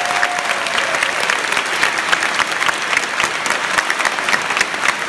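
Concert audience applauding: dense, steady clapping from many people. A last held instrument note dies away in the first half second.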